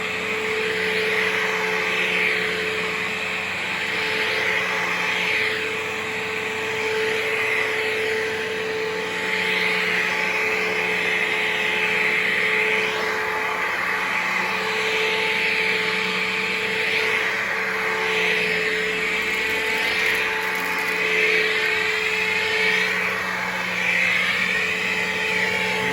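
Dirt Devil Vision Swivel Glide upright vacuum running steadily on a low-pile rug, with a constant motor hum and whine under its airflow rush. The rush swells and fades every couple of seconds as the cleaner is pushed back and forth.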